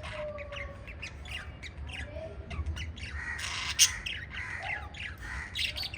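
Pet lovebirds chirping and squawking in many short, quick calls that overlap, with a harsh, loud squawk a little before four seconds in.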